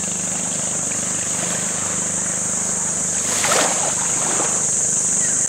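Small boat's outboard motor running steadily, a low hum that fades out near the end, under a steady high-pitched hiss. A short louder sound comes about three and a half seconds in.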